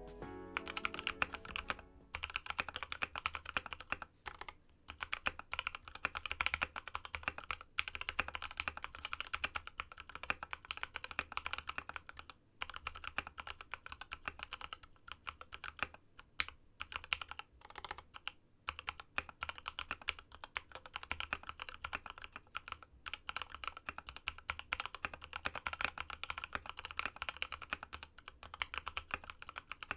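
Continuous fast typing on a custom aluminium-cased Space65 mechanical keyboard with lubed Tealios V2 linear switches on a carbon-fibre plate and MT3-profile PBT keycaps. The keystrokes come in quick runs with a few short pauses.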